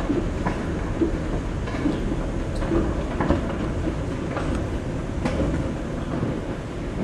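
Footsteps on a hard floor in an underground pedestrian tunnel, irregular sharp steps over a steady low rumble.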